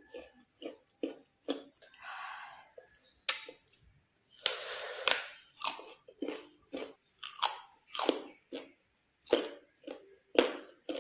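Crisp bites into unripe green mango and chewing, a run of sharp crunches with a longer crunching bite about four and a half seconds in.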